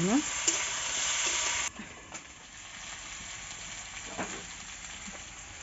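Potato wedges frying in hot oil in a metal kadai, sizzling while being stirred with a metal ladle. The sizzle drops abruptly to a quieter hiss about a second and a half in.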